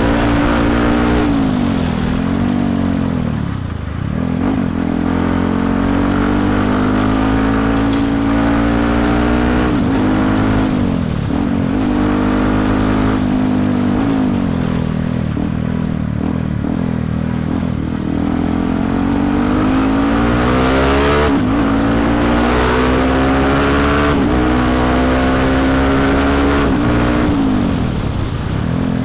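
Yamaha WR155R's single-cylinder four-stroke engine heard from the rider's seat while under way. Its pitch climbs as the bike accelerates, then drops sharply at each gear change, several times over. Wind buffets the helmet microphone.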